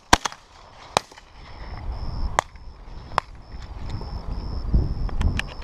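Shotgun fired once just after the start, a second sharp crack close behind, followed by a few fainter single cracks spread over the next few seconds. A high pulsing chirp runs underneath, and low rumble of wind on the microphone builds in the second half.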